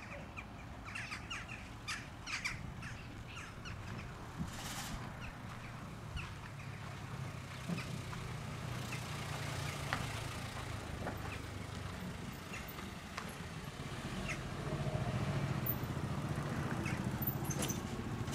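A vehicle engine idling as a low, steady rumble that grows louder about fifteen seconds in, with scattered short bird calls over it.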